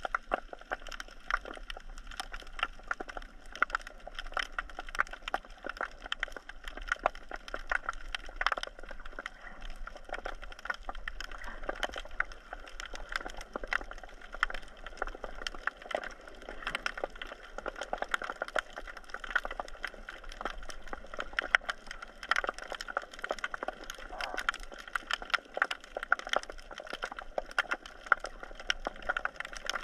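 Underwater crackle of many sharp clicks, dense and irregular, typical of snapping shrimp on a rocky reef.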